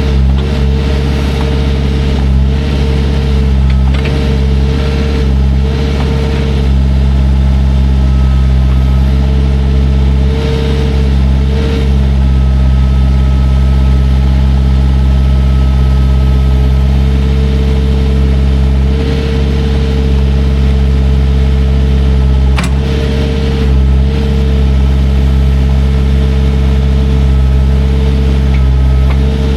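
Engine of a heavy machine running steadily at a constant speed, with a higher tone that comes and goes and one sharp click about two-thirds of the way through.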